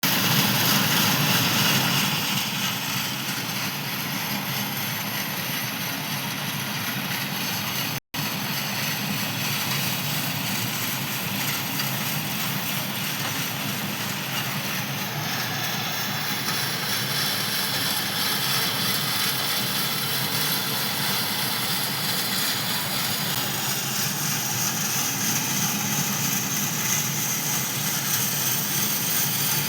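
Excavator engine running steadily with a noisy, even sound. The sound cuts out completely for an instant about eight seconds in.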